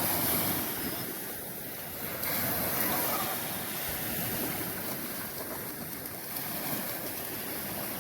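Ocean surf washing steadily onto the beach, with wind across the microphone.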